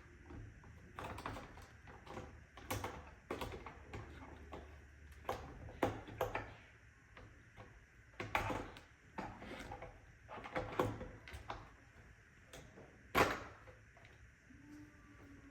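Irregular plastic clicks and knocks as the parts of an iRobot Roomba 692 robot vacuum are handled and fitted back together, with a sharper knock near the end.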